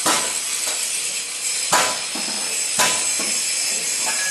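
Steel struck with a hammer: three sharp metallic clanks at uneven intervals, each with a brief ring, over a steady hiss.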